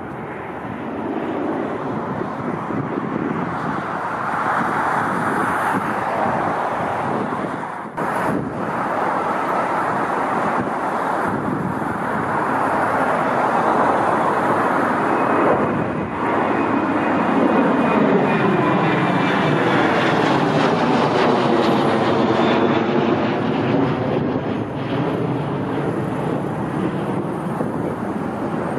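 Airliner passing low overhead. The engine noise builds over the first few seconds and stays loud, with a faint high whine in the middle and a sweeping, hollow phasing as it goes by.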